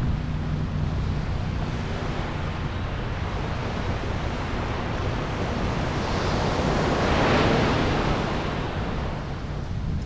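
Surf breaking and washing up a sandy beach, with wind buffeting the microphone. One wave swells up about six seconds in, is loudest around seven and a half seconds, then drains away.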